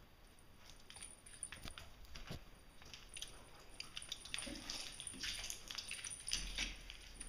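A cat's claws and paws scrabbling, tapping and skidding on a wooden parquet floor as it pounces and runs: scattered irregular clicks and scrapes, few at first and busier and louder in the second half.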